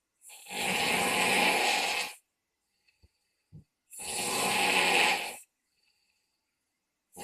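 Loud snoring: two long snores of about a second and a half each, separated by quiet pauses, with a third starting at the very end.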